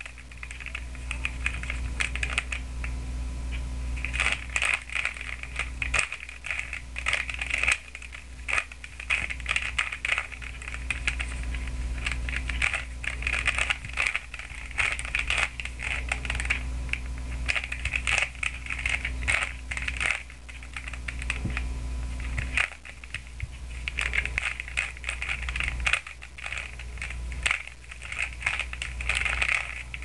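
A Rubik's Cube being turned quickly by hand: a rapid, irregular run of plastic clicks and clacks as its layers snap round.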